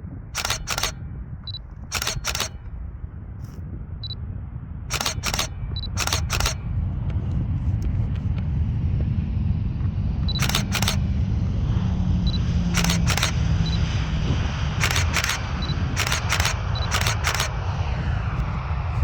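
Single-lens reflex camera shutter firing in quick bursts of two or three frames, nine or so bursts. Under it, the low rumble of a Boeing 737 on approach grows louder from about halfway in.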